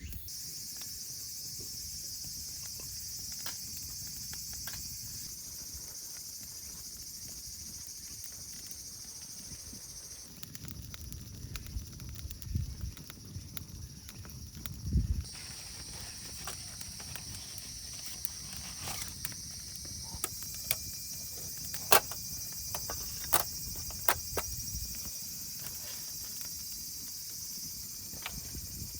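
Steady high-pitched chirring of insects, crickets among them, with a few sharp clicks and taps about two thirds of the way through.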